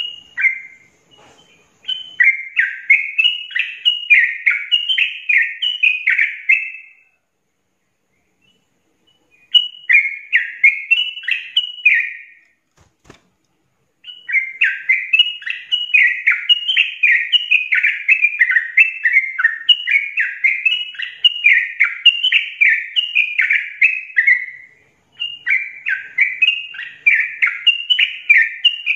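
Yellow-vented bulbul (trucukan) singing a fast, tightly packed rolling song of repeated chattering notes, the 'ropel rapat' style prized for tutoring other songbirds. It sings in several long runs with short pauses between them, the longest run lasting about ten seconds.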